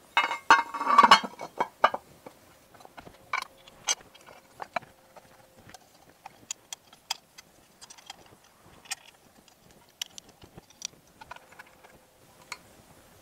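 Metal clinks and clatter as the top cover is fitted back onto a Colchester Student lathe's threading gearbox. There is a burst of rattling metal in the first two seconds, then scattered light clicks and taps.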